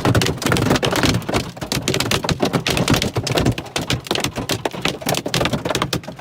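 Hailstones striking a hard surface: a dense, irregular clatter of many sharp impacts.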